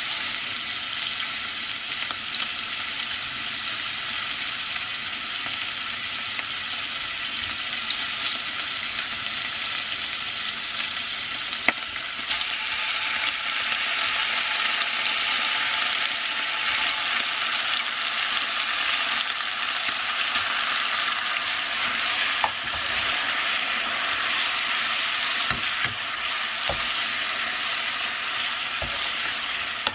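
Pork belly and kimchi sizzling as they stir-fry in an enamelled pot, the sizzle growing louder about twelve seconds in. Near the end a wooden spoon knocks a few times against the pot as it stirs.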